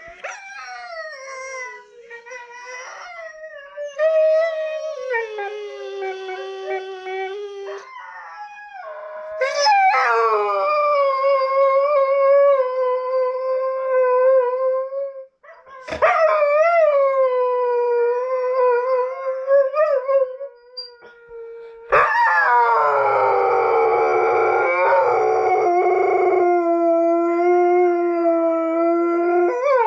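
Catahoula Leopard Dog howling: a string of long, drawn-out howls, each several seconds long, with short breaks between them.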